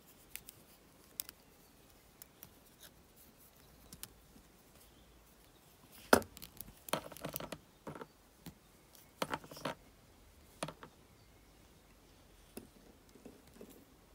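Copper wire ticking and scraping against itself and the fingers as loose wire ends are bent and fed around a wire-wrapped pendant frame by hand. Faint scattered small clicks, the sharpest about six seconds in, with short clusters of scraping around seven and nine seconds.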